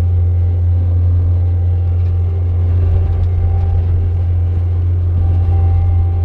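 Engine of a farm machine running steadily, a loud, deep, unchanging drone.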